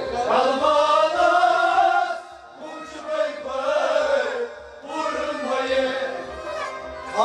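A male voice sings a Kashmiri devotional kalam in a long-drawn, chant-like melody, pausing briefly twice between phrases, with a steady low beat underneath.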